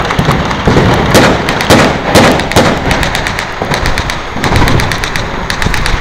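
Blank gunfire in a staged street battle: irregular sharp shots, a dozen or so, sometimes several in quick succession, over a steady background haze.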